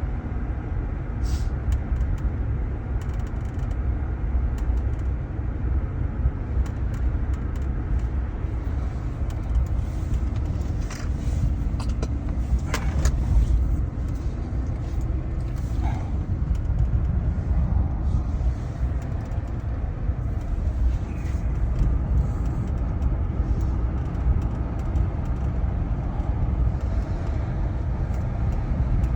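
Steady low rumble of a motor vehicle, with a few faint clicks about halfway through.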